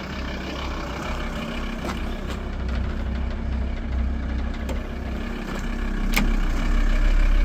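Volkswagen Transporter TDI turbo-diesel engine idling steadily, growing louder near the end, with a few light clicks.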